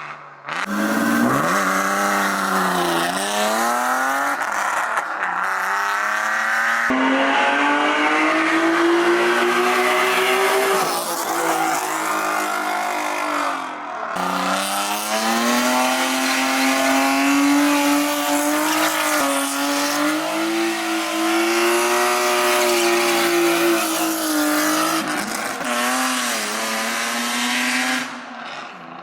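Straight-piped BMW M50B25 2.5-litre inline-six in an E36 325i, held at high revs with the pitch dipping and climbing as the throttle is worked, over tyres squealing through long drifts. The sound cuts off and jumps abruptly twice, about a third and halfway through.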